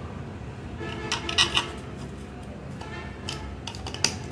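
Light clinks and scrapes as a plastic switch plate and its wires are pushed against a metal wall box, in small clusters about a second in and again near the end.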